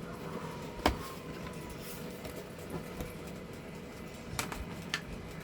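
Three sharp clicks from PC monitor parts being handled during reassembly, one about a second in and two close together near the end, over a low steady hiss.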